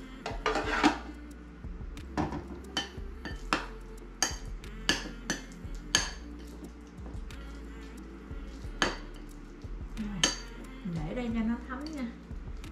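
Metal kitchen utensil clinking and tapping against a dish in about a dozen separate sharp clinks, the loudest cluster about a second in.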